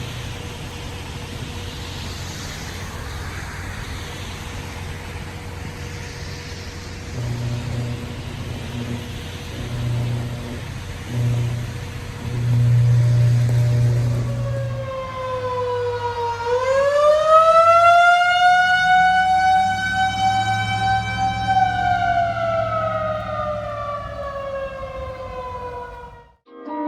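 Steady rushing noise with a low hum that comes and goes, then, about halfway through, an outdoor tornado warning siren wails. Its pitch dips, climbs and holds, then slowly falls before cutting off near the end.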